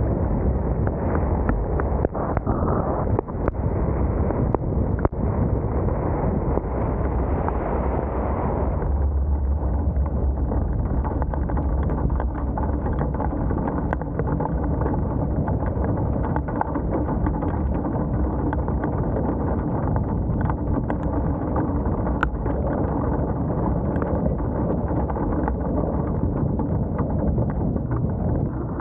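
Wind buffeting a roof-mounted camera's microphone on a vehicle in a storm, a heavy rumble with tyre noise on the wet road and scattered sharp ticks. About nine seconds in the hiss drops and the low rumble grows, then holds steady.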